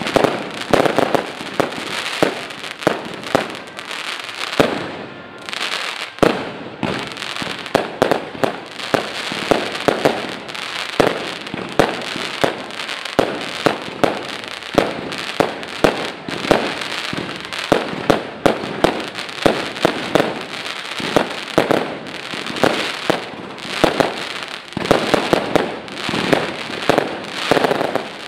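An aerial fireworks display: shells bursting in a rapid, irregular barrage of bangs, with crackling between them.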